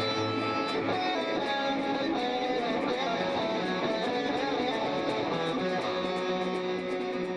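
Rock band music: strummed electric guitars over bass and a steady drum beat with regular cymbal strokes.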